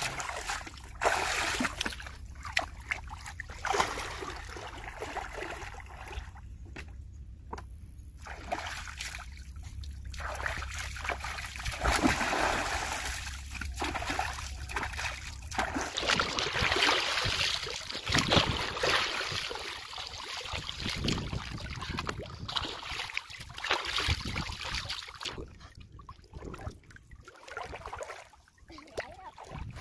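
Shallow water splashing and sloshing in irregular bursts as a person wades and thrashes about in a muddy pond.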